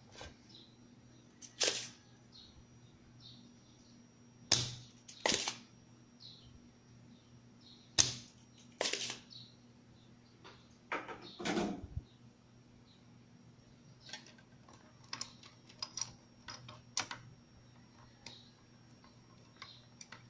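Spring-loaded desoldering pump snapping as it sucks molten solder from the pins of the faulty vertical output IC on a CRT TV main board: about six sharp snaps over the first twelve seconds, then lighter clicks and taps.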